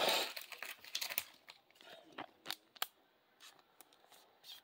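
Trading cards and a clear plastic card sleeve being handled: a short rustle at the start, then scattered light clicks and ticks of card and plastic.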